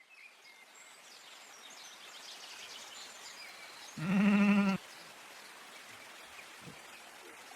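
An animal's single wavering call, just under a second long, about four seconds in, over a steady hiss, with faint high chirps in the first few seconds.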